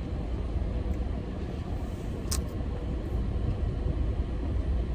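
Steady low vehicle rumble with a faint steady hum, and a single sharp click a little over two seconds in.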